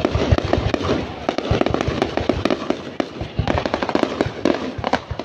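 Aerial fireworks display: shells launching and bursting overhead, many bangs and crackles in quick succession.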